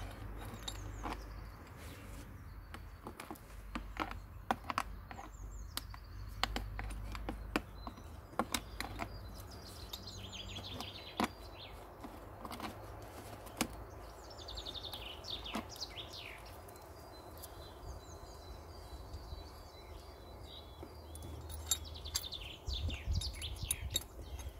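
Small birds chirping on and off, over scattered sharp clicks and clinks of chainsaw parts and tools being handled.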